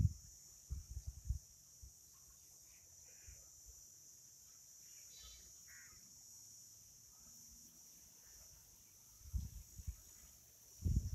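Outdoor ambience: a steady high-pitched insect drone with a few faint bird chirps. Brief low rumbles come about a second in and again near the end.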